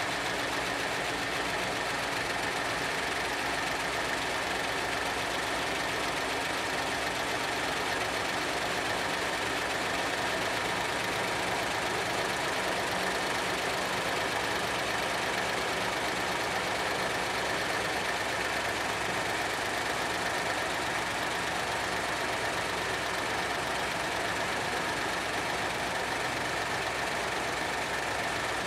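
Engine of a 1970 Ford idling steadily.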